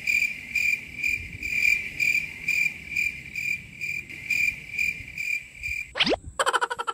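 Cricket chirping steadily, about two chirps a second, stopping about six seconds in. It is followed near the end by a quick rising swoop and a fast rattle.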